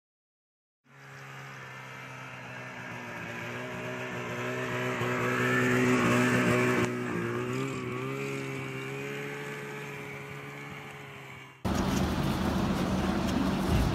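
Ski-Doo snowmobile engine running steadily, a low hum that starts after about a second of silence, grows louder, drops suddenly about seven seconds in and wavers a little in pitch. Near the end it cuts off into a loud, steady rushing noise.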